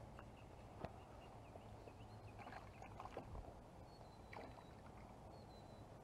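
Near silence: faint outdoor ambience with a few soft clicks and light rustling.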